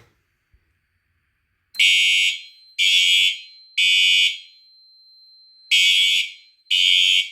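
Siemens U-MMT ceiling horn strobe sounding its code-3 horn pattern, starting about two seconds in. It gives three loud half-second blasts about a second apart, a pause, then three more: the temporal-three fire evacuation signal.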